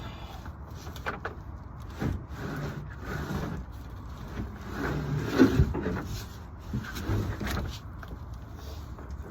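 A wooden subfloor board being worked into place on a van floor: a series of irregular knocks and thumps with some scraping and rubbing of wood, over a steady low hum.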